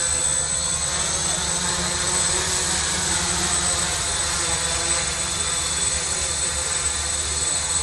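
Quadrotor drone flying, its electric motors and propellers giving a steady buzz.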